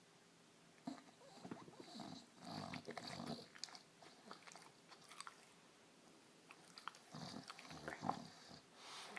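Sleeping puppy snoring, with two spells of noisy, crackly breathing, one starting about a second in and the other about seven seconds in.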